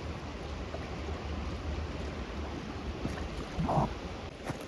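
River water rushing over rapids, with wind rumbling on the microphone; a short sound breaks in about three-quarters of the way through.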